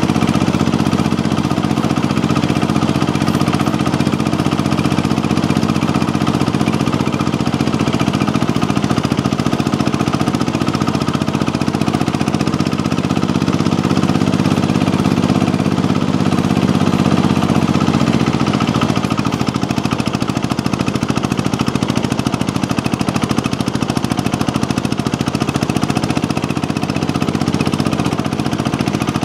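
Onan diesel engine of an Economy garden tractor running steadily while the tractor drives along, loud, with a fast even pulse.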